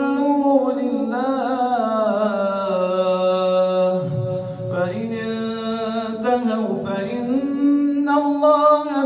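A man's voice chanting Quran recitation into a microphone, an imam's melodic reading with long drawn-out notes. The pitch slides slowly downward over the first few seconds, breaks briefly about four seconds in, then the held notes climb again near the end.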